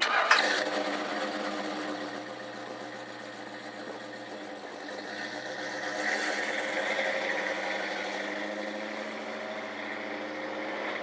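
1964 Ford Thunderbird's V8 engine firing up with a sudden loud burst, then settling into a steady idle.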